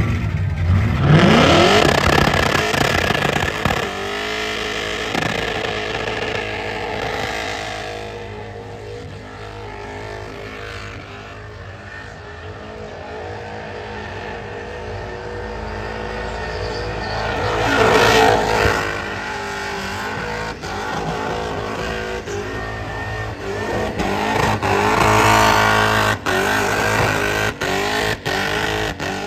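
Supercharged engine of a VH Commodore burnout car revving hard through a burnout, with tyres spinning on the pad. The revs climb in surges near the start, again about two-thirds of the way through and near the end, with sharp breaks in the sound in the last few seconds.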